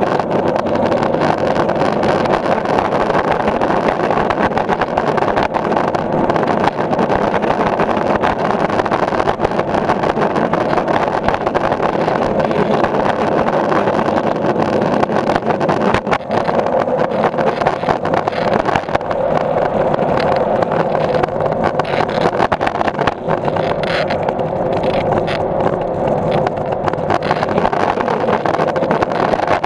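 Skateboard wheels rolling over a concrete garage floor: a steady, loud rumble.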